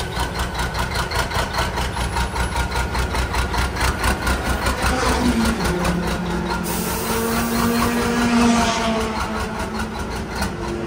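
800-horsepower diesel engine of a Formula Truck race truck idling, with an even, rapid pulse.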